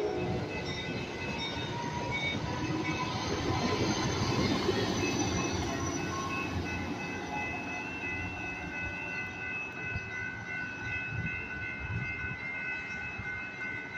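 Commuter train of Comet passenger cars rolling past, a rumble that swells about four seconds in and then fades. A steady high-pitched squeal sets in about halfway through and holds.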